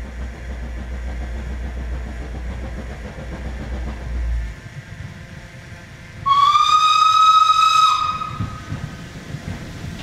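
Steam locomotive whistle blown once about six seconds in: a single steady high note with a slight rise, about a second and a half long. Before it there is a low rumble, and after it the first chuffing of the approaching steam train.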